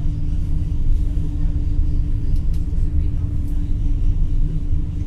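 Inside a Dutch NS Intercity New Generation (ICNG) electric train in motion: a steady low rumble from running on the rails, with a constant hum, and faint passenger voices underneath.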